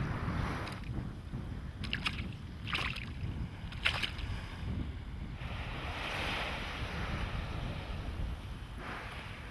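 Wind rumbling on the microphone over surf washing on the shore, with a few short clicks about two to four seconds in.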